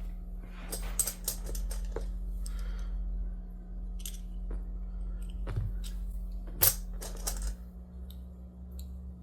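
One-ounce silver bullion rounds clinking against each other as they are handled and counted, a scatter of sharp metallic clicks with the loudest about six and a half seconds in, over a steady low hum.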